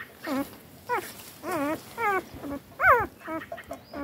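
Very young puppy crying: a string of short, wavering, high-pitched whimpers, about two a second. The loudest cry comes near the end and falls in pitch.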